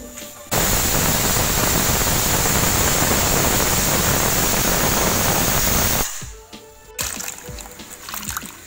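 LEO Eco Plus pressure cooker whistling: a loud, steady hiss of steam forced out past the weight valve, which starts suddenly, holds for about five seconds and then dies away. The release means the cooker has come up to pressure. Faint splashing of water follows near the end.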